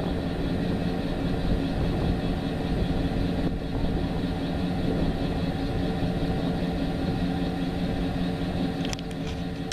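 A vehicle engine idling with a steady low hum, and a few faint clicks near the end.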